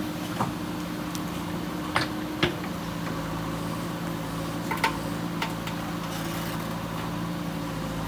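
JCB backhoe loader's diesel engine running steadily with a low hum, with a few sharp metallic knocks, the loudest about two and a half seconds in.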